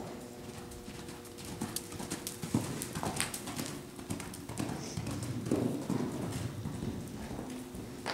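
Hoofbeats of a ridden pony moving across a sand arena floor: a loose, uneven run of muffled thuds that grows louder in the middle as it passes close by, then fades as it moves away.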